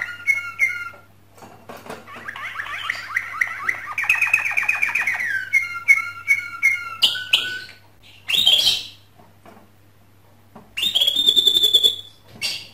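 Male canary singing its courtship song in phrases with short pauses: a fast rolling trill about two seconds in, then a run of short repeated notes, a quick rising note, and a high held note near the end.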